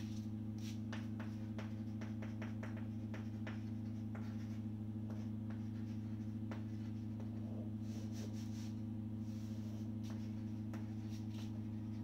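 Chalk writing on a blackboard: scattered short taps and scratches of the strokes over a steady low electrical hum.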